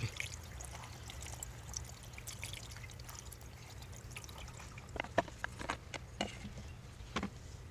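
Engine oil flush being poured slowly through a funnel into the engine's oil filler opening: a soft, steady trickle of liquid, with a few light clicks about five seconds in and near the end.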